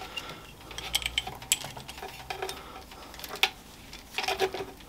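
Light metal clicks and knocks as the quill handle and fine-feed assembly of a Warco GH 40 bench-top milling machine is worked loose and slid out of the head by hand. The clicks come one at a time at uneven intervals, a few of them sharper.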